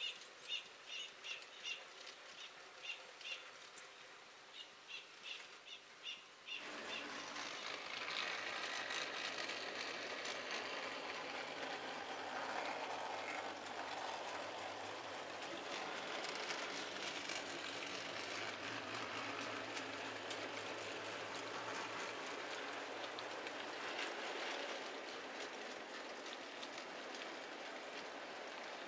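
A model freight train rolling over the track: a steady hiss of wheels with a low motor hum, starting abruptly about six and a half seconds in. Before that, short high chirps repeat about twice a second.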